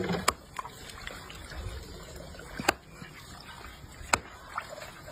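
Knife cutting: three loud, sharp chopping strokes and a couple of fainter ones, irregularly spaced, over steady background noise.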